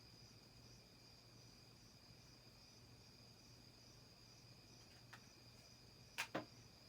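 Hunter Auberville 44-inch ceiling fan running on low speed: a faint, steady motor hum with a thin high steady tone above it, the hum the owner counts as the one fault of these smaller Hunter fans. Two sharp clicks about six seconds in.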